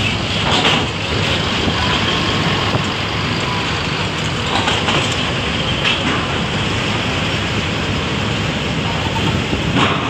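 Diesel engine of a large coach bus running as the bus creeps forward, a steady heavy din with a few short sharp noises.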